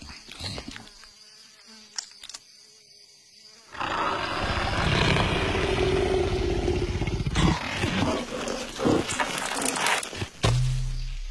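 Cartoon leopard's long roar, starting about four seconds in, over faint insect ambience. It is followed by a few sharp knocks and a low thud near the end.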